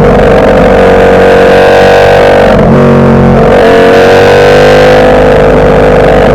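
Ducati Panigale V4 superbike's V4 engine under hard acceleration, its pitch climbing steadily, with breaks at gear changes about two and a half and three and a half seconds in.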